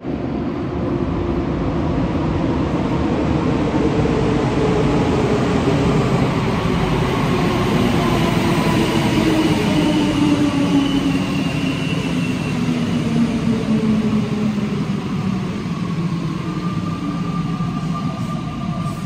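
Alstom NS-93 rubber-tyred metro train pulling into a station and braking, its running noise loud and steady while its traction whine falls slowly in pitch as it slows.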